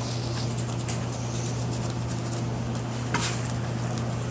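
Razor blade scraping old seam adhesive off the edge of a slate pool-table bed, in a few short scratchy strokes, the clearest about three seconds in. A steady low hum runs underneath.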